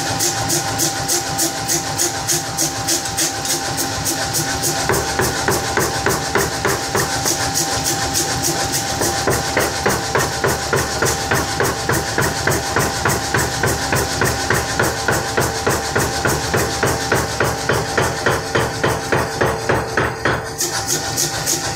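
A 50 kg pneumatic power forging hammer cycling, its ram coming down on the anvil die in a steady, rapid rhythm of several blows a second, with the machine's steady running hum underneath.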